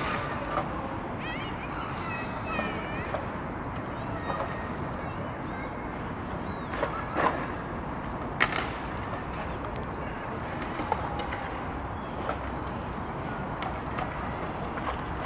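Outdoor city waterfront ambience: a steady low rumble of distant traffic, with birds calling in short chirps and whistles through it and a few sharp knocks around the middle.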